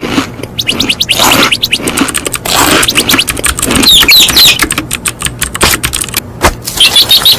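Animated intro soundtrack of rapid clicking sounds mixed with short, high chirps.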